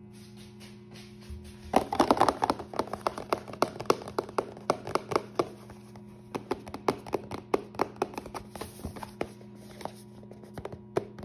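Fingers tapping and handling a cardboard toy box: quick, irregular taps, several a second, starting about two seconds in, over a faint steady hum.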